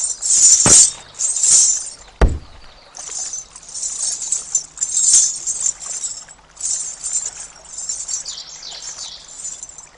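Ghungroo ankle bells jingling in many short bursts as they are handled and tied on. Two short, sharp sounds sweep downward in pitch near the start, and a faint steady hum runs underneath from about three seconds in.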